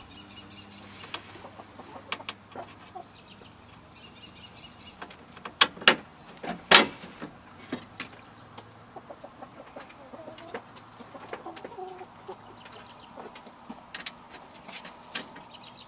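Metal knocks, clicks and scrapes as a power window regulator is wiggled into the sheet-metal door shell of a 1991 Ford F-150, with the loudest clanks about six seconds in. Two short high-pitched calls come through, near the start and about four seconds in.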